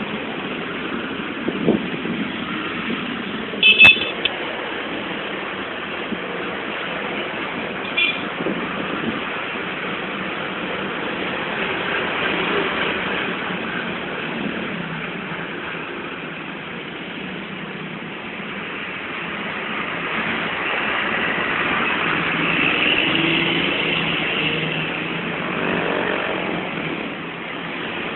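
Road traffic with cars and motorcycles passing, the noise swelling and fading as vehicles go by. Two brief sharp high-pitched sounds come about four and eight seconds in, the first the loudest.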